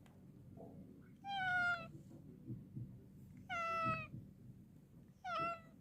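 Domestic cat meowing three times, a couple of seconds apart. Each meow falls slightly in pitch, and the last is the shortest.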